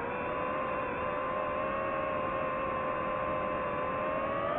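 Camera drone's motors and propellers whining steadily in flight, the pitch rising slightly near the end.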